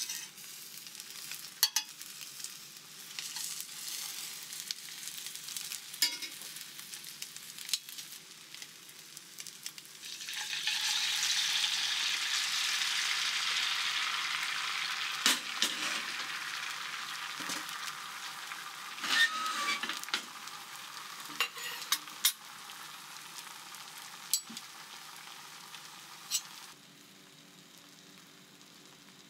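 Egg omelette frying in a stainless steel pan: a light sizzle with sharp taps and scrapes of a metal spatula and spoon. About a third of the way in the sizzle jumps much louder as beaten egg is ladled into the hot pan, then slowly dies down.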